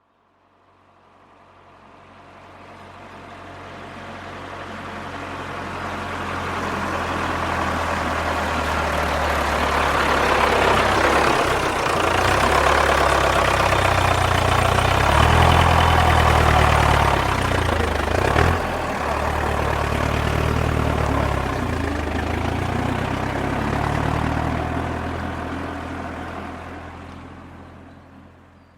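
Farm tractor engine passing by. It grows louder as the tractor approaches, is loudest through the middle with its pitch wavering a little, then fades away. There is one short sharp sound about eighteen seconds in.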